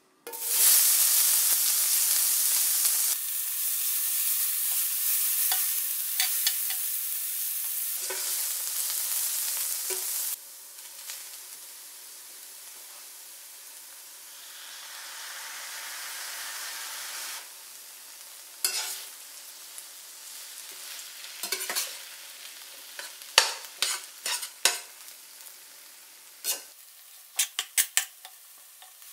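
Chopped kkakdugi (cubed radish kimchi) hits a hot oiled stainless-steel frying pan and sizzles loudly at once. The sizzle then drops to a steadier, quieter frying, swells again briefly when rice is added, and near the end a metal spatula stirring the rice clicks and scrapes sharply against the pan.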